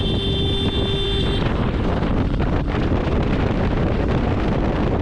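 Steady wind rush on a helmet microphone from a motorcycle riding at road speed, with a vehicle horn held for about a second and a half at the start before cutting off.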